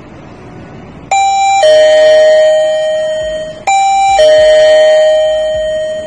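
Electronic doorbell chime sounding a two-tone ding-dong twice, rung through the access-control keypad's doorbell function. Each chime steps from a higher note to a lower one that rings on and fades.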